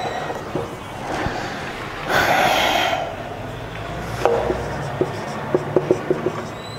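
Whiteboard marker writing: short squeaks and taps of the felt tip on the board, coming thick and fast over the last couple of seconds. About two seconds in there is a louder hiss lasting about a second.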